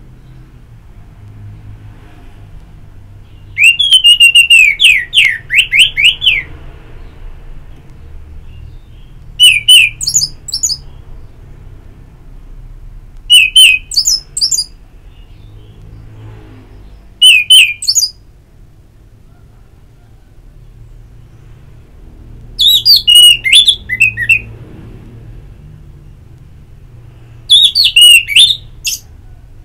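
Orange-headed thrush singing: six loud phrases a few seconds apart, each a quick run of falling whistled notes with higher squeaky notes above, over a low background hum.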